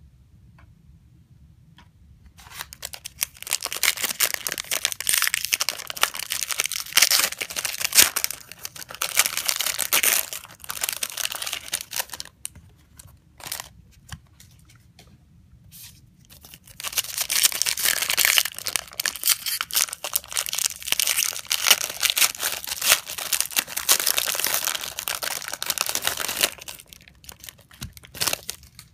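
Foil trading-card pack wrappers being torn open and crinkled, in two long spells of about ten seconds each, with a few sharp clicks in the gap between them.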